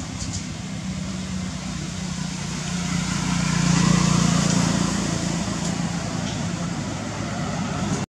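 A motor vehicle running, a steady low rumble with road noise that grows louder to a peak about halfway through and then fades again. The sound cuts out abruptly just at the end.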